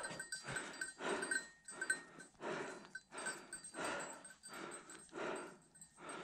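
Heavy, rhythmic breathing of a hunter trudging through snow, about one breath a second.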